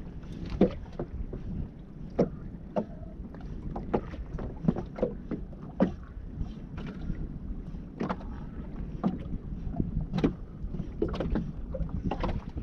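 Water slapping against the hull of a small drifting boat in irregular short knocks, over a steady low rush of wind on the microphone.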